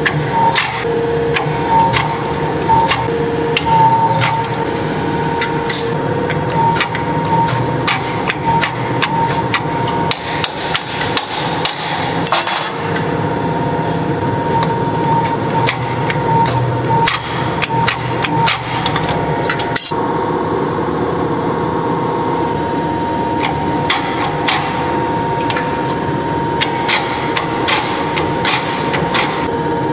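Power hammer striking a red-hot steel axe blank in irregular blows, over a steady high machine hum.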